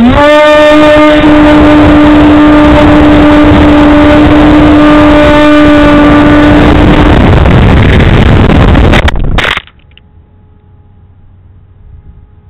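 Electric RC plane motor whining steadily at full throttle over heavy wind rush, heard close up from the plane's onboard camera. About seven seconds in the motor note falls away while the wind noise swells. About nine and a half seconds in a crash, with a couple of sharp knocks, cuts the loud sound off suddenly, leaving only a faint steady whine.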